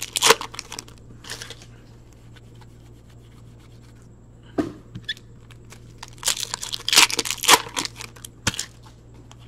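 Hockey card pack wrapper crinkling and tearing as a pack is opened and its cards are handled. It comes in short irregular bursts at the start and about a second in, once about four and a half seconds in, and in a busier spell from about six to eight seconds, with quiet stretches between.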